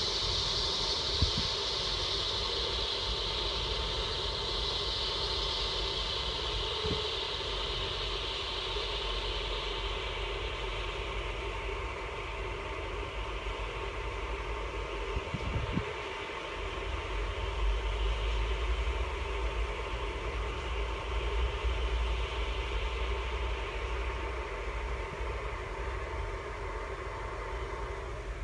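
Steady whirring of a wind turbine spinning in storm wind, with a high whine that slowly falls in pitch as the wind dies down and the turbine slows. A low gusty rumble of wind grows in the second half, with a few light knocks.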